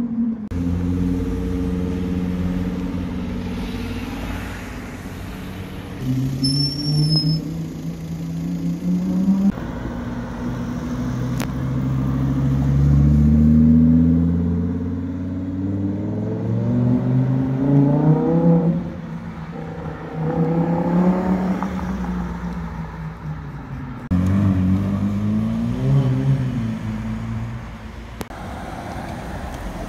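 High-performance car engines accelerating hard, revs climbing and falling through gearchanges over several separate drive-bys; the loudest run is a second-generation Audi R8's V10 pulling away.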